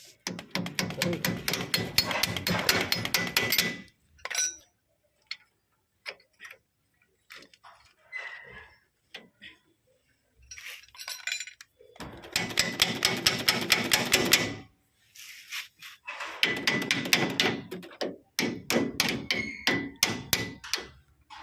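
Rapid metal-on-metal hammer blows during e-rickshaw body repair, in bursts of several seconds each with scattered single knocks between them: a long burst at the start, then three more from about twelve seconds in.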